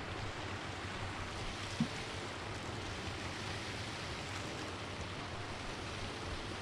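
Steady rushing hiss of running water, with one short soft knock about two seconds in.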